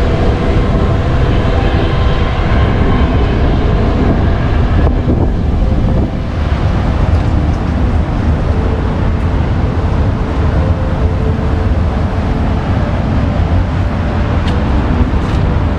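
Wind buffeting the microphone over a steady rumble of waterfront traffic, with the engine hum of a passing passenger ferry in the first few seconds.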